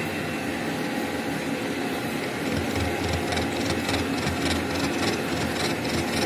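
Milling machine running steadily during spur-gear tooth cutting. About two and a half seconds in it gets louder, with a fast, even ticking of about four a second.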